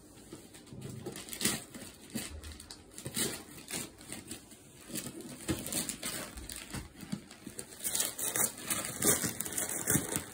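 Gift-wrapping paper crinkling, rustling and tearing in irregular crackles as a baby pulls at it on a wrapped box, growing busier and louder in the second half.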